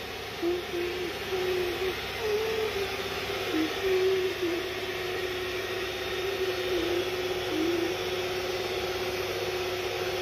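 Electric kitchen mixer running steadily, its motor whirring, with a wavering hum riding over it.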